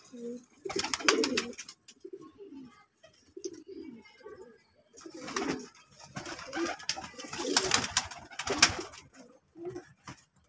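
Domestic pigeons cooing repeatedly in a loft, with several bursts of rapid wing flapping and feather rustling.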